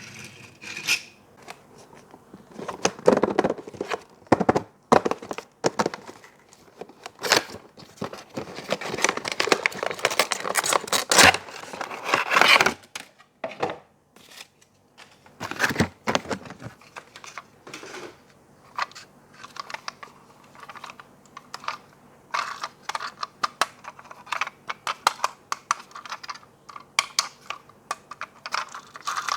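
Toy packaging being torn open and crinkled by hand, with long rustling stretches in the first half. Later come many sharp clicks and taps as the pieces are handled.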